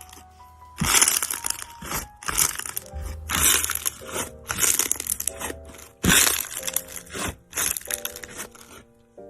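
Repeated crunching, crackling sounds, each lasting a fraction of a second, over background jazz music with steady sustained notes.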